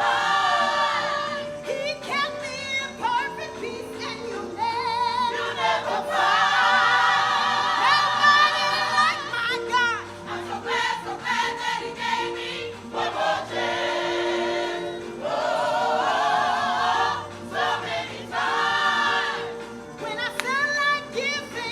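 Gospel music: a choir singing over held instrumental chords, in loud sung phrases with quieter stretches between them.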